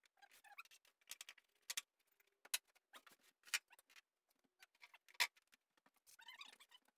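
Faint handling noise from a rigid polyiso foam insulation board being pressed and fastened against the ceiling: scattered sharp taps and knocks, four of them loudest, with a few short squeaks of foam rubbing.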